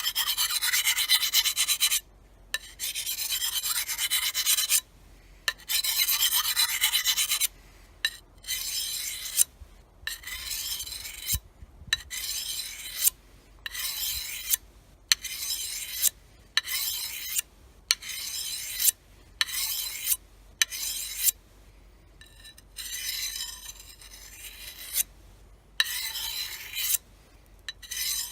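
A hand-held EZE-Lap diamond sharpener rasping along the steel edge of an 8670M brush knife in repeated sharpening strokes. It begins with a few long strokes of about two seconds each, then shorter strokes at roughly one a second.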